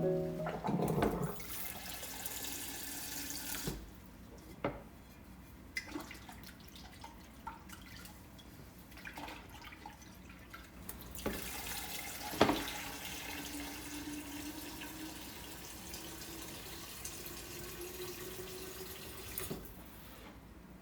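Kitchen tap running water into a sink in two stretches, with a few sharp clicks and knocks in between; the loudest knock comes about halfway through. During the second stretch of running water a faint tone rises slowly.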